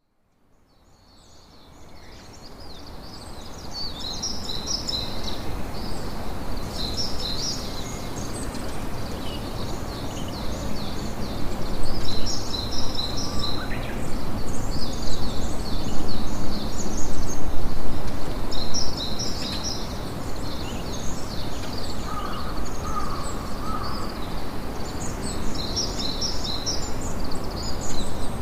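Campfire crackling under a steady rush of noise, fading in from silence over the first few seconds, with birds chirping in quick repeated bursts throughout.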